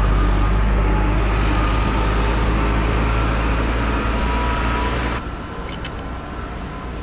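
Diesel engine of a large orange tractor-mounted sugarcane grab loader moving away along the road, a steady low engine drone with road and tyre noise that fades, then drops off suddenly about five seconds in.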